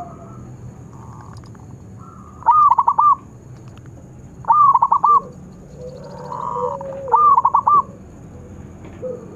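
Zebra dove (perkutut) calling: three loud phrases, each a quick run of about four arched cooing notes, a couple of seconds apart, with softer cooing between them.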